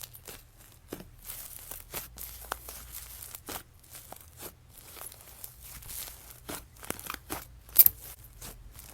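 Slime being squeezed and stretched by hand, making irregular small crackles, clicks and pops, with one louder pop near the end.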